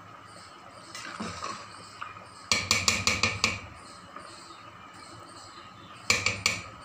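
A metal spoon clinking against the rim of an aluminium cooking pot: a quick run of about six taps, then three or four more near the end.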